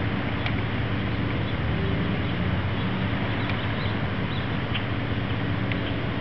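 A steady low mechanical hum, like a running engine, with a few faint, short bird chirps scattered through it.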